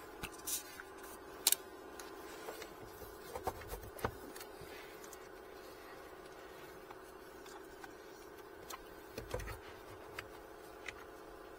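Scattered clicks and knocks of hard plastic parts handled under a car dashboard while a blower motor is fitted into its housing, over a steady hum.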